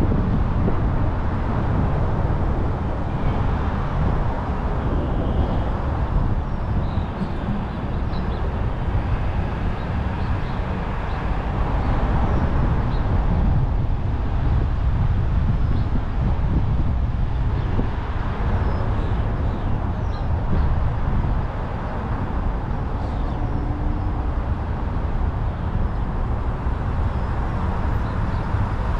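Car driving: a steady low rumble of road, tyre and engine noise.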